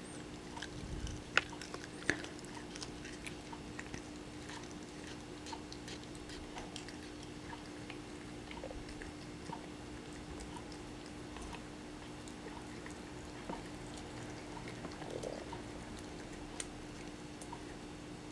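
A British Shorthair cat chewing a dried treat: faint crisp crunches, thicker in the first few seconds and sparser later, over a faint steady hum.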